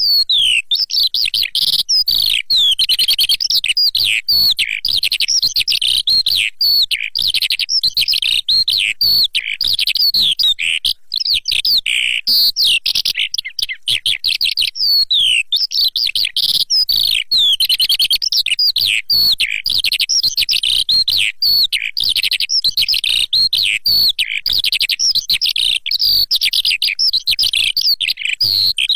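Lark song: a fast, unbroken stream of high chirps, trills and falling notes, a recording meant as a hunting lure call.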